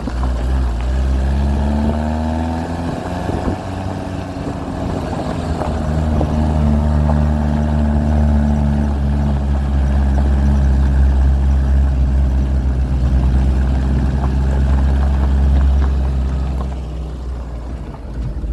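Suzuki LJ80's four-cylinder engine driving off-road: the engine note climbs in pitch in the first couple of seconds, runs loud and steady through the middle, and eases off near the end.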